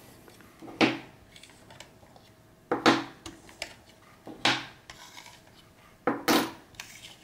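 Euro coins slid one at a time across the glass platform of a digital kitchen scale and off its edge: about four short metallic scrapes.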